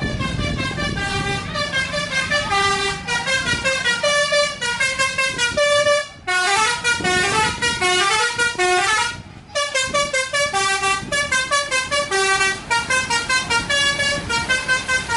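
Bus fitted with a telolet basuri multi-trumpet horn playing a fast melodic tune of short notes over a vehicle engine. The tune breaks off twice, briefly, about six and nine and a half seconds in.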